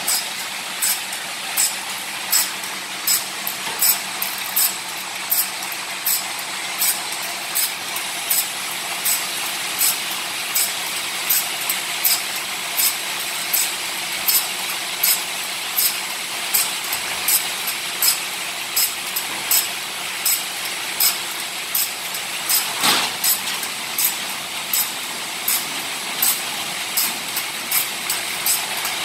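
Automatic band saw blade sharpening machine running: a steady motor hum with a short, high grinding rasp about every three-quarters of a second as the grinding wheel dresses one tooth after another of the log-mill band saw blade. One louder knock about two-thirds of the way through.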